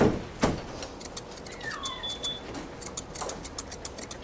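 Curved chunker shears snipping a Westie's coat: a quick run of crisp metallic snips, several a second, from about a second in. Two louder knocks come near the start.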